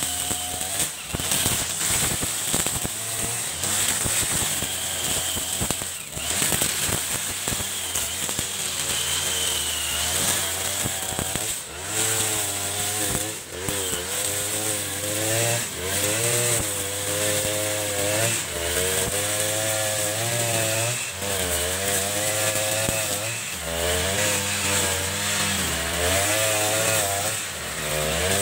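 A 40cc two-stroke backpack brush cutter running at high revs while cutting tall grass. Its engine pitch wavers up and down as the cutting head swings through the growth and takes the load.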